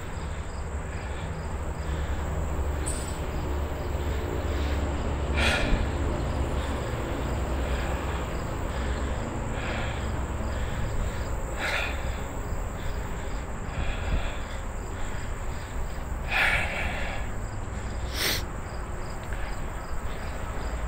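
Steady high insect chirring, with a low rumble under it. A few short knocks stand out about a quarter, half and three-quarters of the way through.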